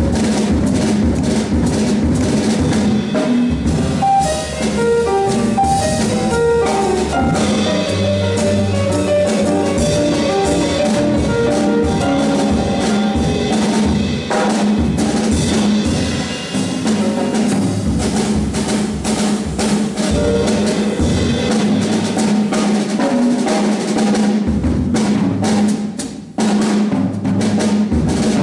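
Piano trio playing live: grand piano, double bass and drum kit together. The sound drops briefly about two seconds before the end, then the band plays on.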